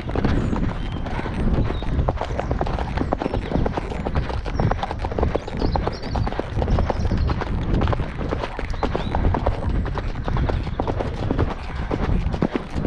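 Hoofbeats of a ridden pony moving at pace along a dirt and gravel track, a steady, rapid run of thudding strides.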